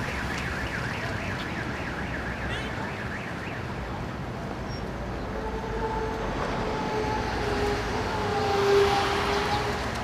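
A police siren over the general noise of a crowd on a street: a rapid warbling pitch in the first few seconds, then a steadier, slowly wavering tone from about halfway through.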